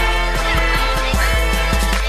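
Background music with heavy bass and a steady drum beat, with short sliding synth-like tones over it.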